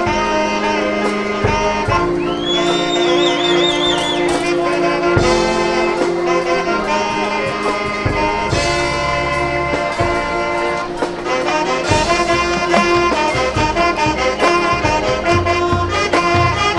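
Marching band playing, brass section carrying sustained chords over drums. About two seconds in, a high note slides up and wavers with vibrato.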